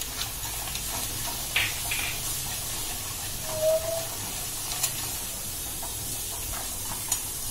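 Spices sizzling in hot oil in a steel kadhai: red chilli powder and masala frying in a tempering, as a steady hiss. A steel spoon stirs through it, giving a few light scrapes and ticks against the pan.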